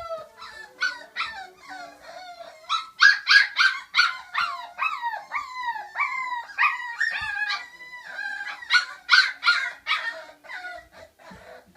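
Five-week-old standard schnauzer puppies whining and yipping in a rapid string of short, high cries that each fall in pitch. Several cries overlap at times.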